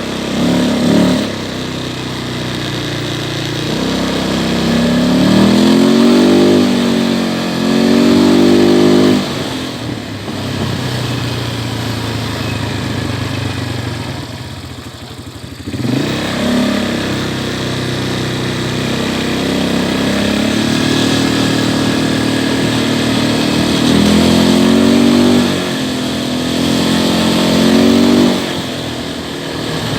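180cc ATV engine running and revving up repeatedly. The pitch climbs in two quick rises a few seconds in, then settles to a low, quieter running at about the middle, and climbs again in a series of rises in the second half.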